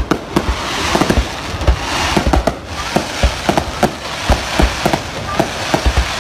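Aerial fireworks bursting close overhead: a rapid, irregular string of loud bangs, several a second, over a continuous hiss.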